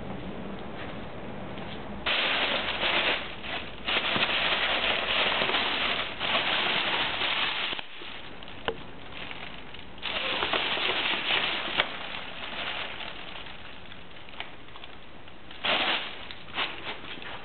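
Thin plastic bag crinkling and crackling as a cat scrambles in and under it, in long bursts with a few sharp crackles, then a short burst near the end.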